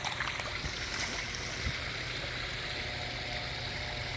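Koi pond waterfall splashing steadily into the pond, with a few short splashes or ticks within the first two seconds.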